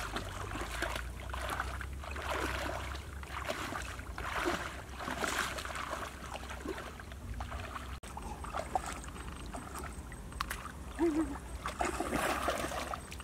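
Muddy shallow water sloshing and splashing as people wade through it and rake through the mud with their hands, in uneven swishes.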